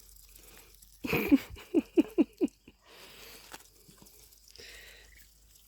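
A domestic duck quacking: one loud call about a second in, then four short quacks in quick succession. Soft pecking and munching of lettuce can be heard under the calls.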